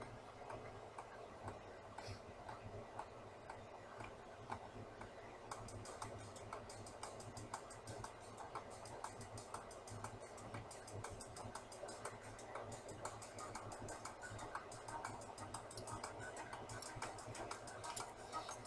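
Italian sausage frying in a skillet, a faint sizzle with many small crackles and pops that grow denser about five or six seconds in.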